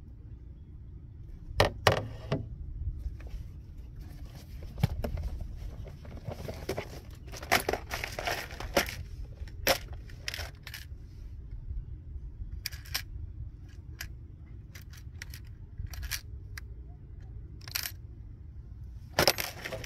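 Irregular clicks, knocks and rustles from fishing gear being handled in a canoe, over a steady low rumble.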